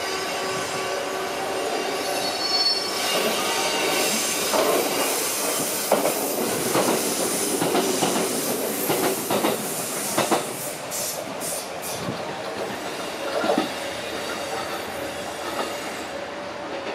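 Trains running past on the tracks. Steel wheels squeal in steady tones, and a close-passing red Kintetsu train clatters over rail joints and points in a quick run of knocks through the middle.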